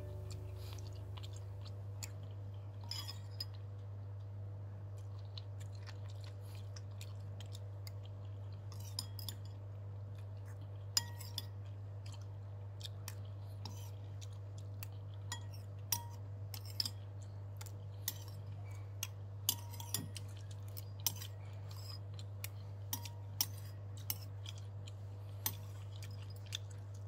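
Metal spoon clinking and scraping against a ceramic bowl while the last of a bowl of rice porridge is eaten: scattered light clicks that come more often in the second half, with faint chewing between them, over a steady low hum.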